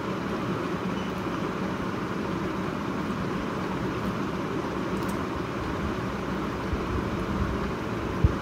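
Steady low rumbling background noise with a faint steady hum underneath, unchanging throughout, and a couple of faint soft ticks.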